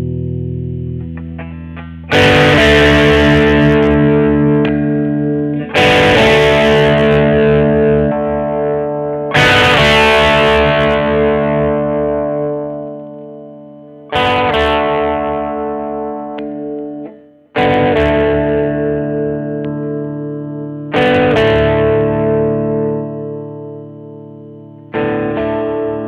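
Schecter Omen 6 electric guitar strumming seven chords, each struck and left to ring out for several seconds before the next.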